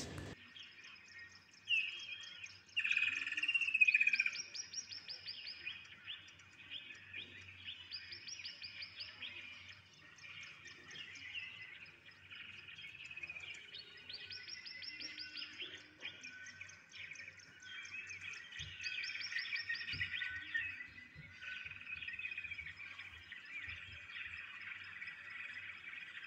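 Birds chirping and trilling from a wildlife film's soundtrack, several calls overlapping, with a quick trilled phrase coming back every few seconds.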